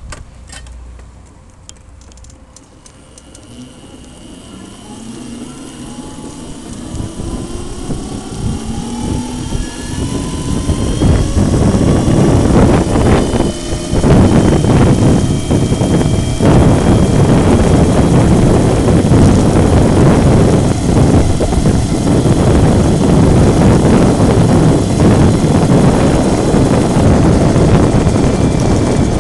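Electric scooter's 800 W motor whining, its pitch rising as the scooter accelerates. A rushing wind and road noise grows with speed and is loud and steady from about a third of the way in, mostly covering the whine.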